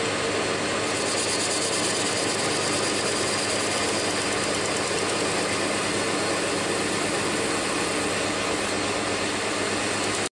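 Metal lathe running while its cutting tool faces the end of spinning aluminium round stock: a steady machine hum with cutting noise. It stops abruptly near the end.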